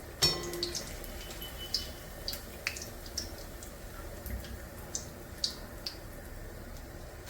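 Bajji deep-frying in hot oil: a steady sizzle with scattered small pops and crackles. A metal utensil clinks once with a brief ring about a quarter second in, the loudest sound.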